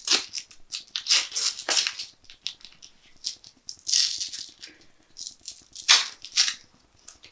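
Double-sided hook-and-loop strap being peeled apart and handled, in a series of short rasping rips.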